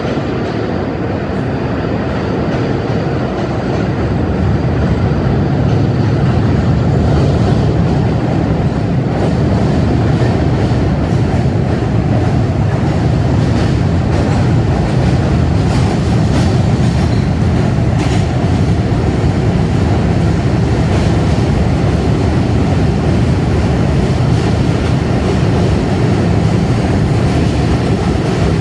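NYC subway rail adhesion work train of R42 and R30 cars rolling along the platform. A steady, loud rumble of wheels and motors builds over the first few seconds, with clicks as the wheels cross rail joints.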